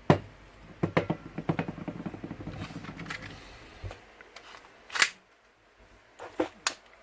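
Clicks and rattles of a KJ Works MK1 gas airsoft pistol being handled and readied to fire, with a brief hiss, then one loud sharp snap about five seconds in and a few lighter clicks after it.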